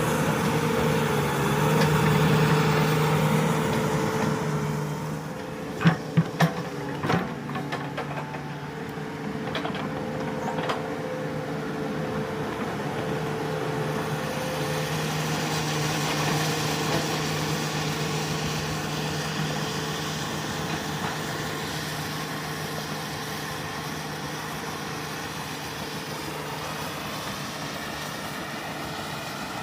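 Komatsu hydraulic excavator's diesel engine running steadily as it works, pulling a little harder for a couple of seconds early on. A few sharp knocks in quick succession about six seconds in.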